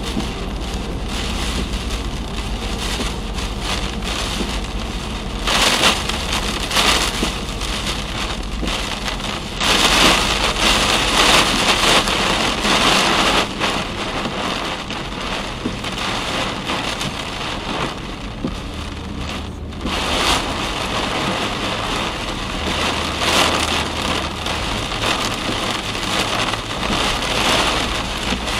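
Heavy rain pelting a moving car, heard from inside the cabin, mixed with tyre hiss on the flooded road. The noise swells for a few seconds about six and about ten seconds in.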